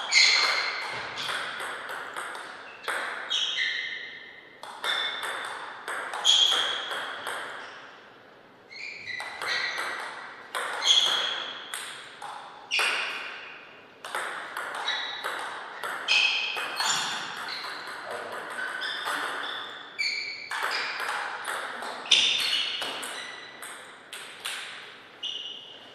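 Table tennis ball being hit back and forth in rallies, sharp clicks of bat strikes and table bounces, each with a short ringing tail. The clicks come in quick runs broken by short pauses between points.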